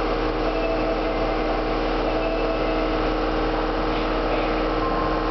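Osaka subway Midosuji Line 30000 series train standing at the platform, giving off a steady hum made of several level tones over a constant background rumble.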